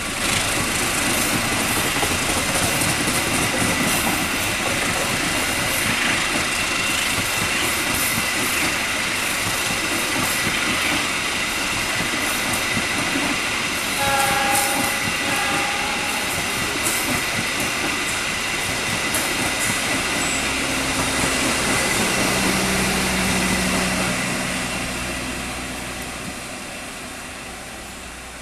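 Diesel-hauled passenger train passing at low speed on a curve: wheels clack over the rail joints under a steady rumble, with a thin high squeal from the wheels. A short pitched sound comes about halfway through. A low hum comes in during the last third, and the whole sound fades as the train moves away.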